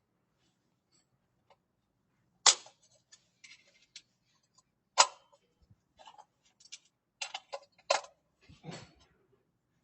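Irregular sharp clicks and knocks: three louder ones about two and a half seconds apart, with clusters of fainter clicks between them.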